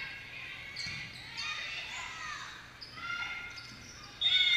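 Indoor volleyball rally in a gym: ball contacts and bounces ringing in the hall, with players' voices calling. Near the end the sound jumps suddenly louder into shouting.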